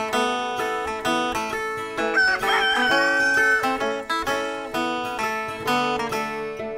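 Picked acoustic guitar music plays throughout. About two seconds in, a rooster crows once over it; the crow rises and then holds for over a second.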